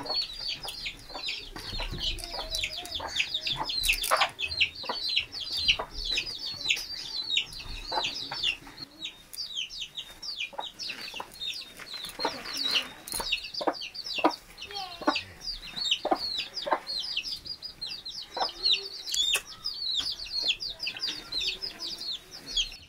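Chickens: a continuous stream of many high, short, falling peeps, typical of a brood of chicks, with a few lower clucks and scattered soft knocks.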